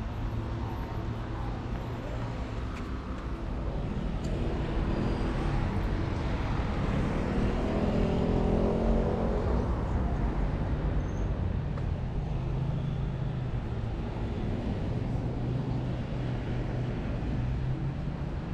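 City street traffic: a steady hum of engines and tyres, with one vehicle passing close and growing loudest about eight or nine seconds in before fading.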